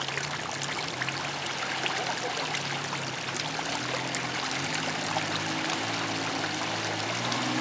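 Low, steady running of an off-road vehicle's diesel engine, its pitch shifting up and down as the vehicle crawls through deep mud ruts, under a steady rushing noise.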